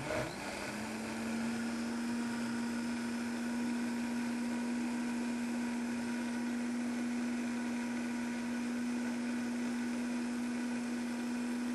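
Countertop blender running, blending a liquid cashew-based cheese sauce. The motor spins up to speed in the first second, then holds a steady pitch.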